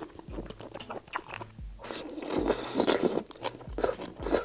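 Close-miked eating of fried skewers in chili sauce: wet chewing with sharp mouth clicks. A bite into a tofu-skin skewer wrapped around coriander brings a louder, noisy stretch of about a second, roughly two seconds in.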